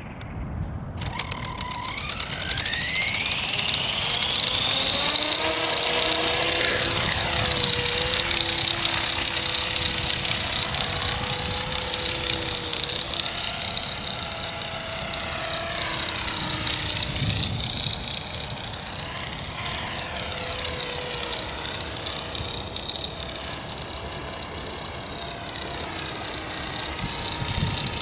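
Accurate 400 RC helicopter spooling up about a second in, its whine rising in pitch over a few seconds, then hovering with a whine that wavers in pitch. The helicopter is running with abnormal noise and heavy vibration after a crash.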